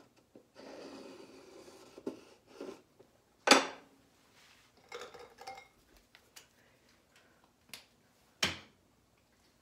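Handling and drawing noise at a desk: a brief scraping rustle, then scattered sharp taps and knocks, the loudest about three and a half seconds in and another about eight and a half seconds in.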